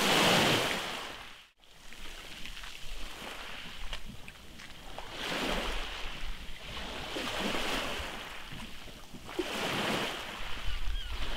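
Small sea waves lapping against a wooden groyne and washing up a shingle beach, the surf swelling and fading every two or three seconds. The sound cuts out briefly about one and a half seconds in.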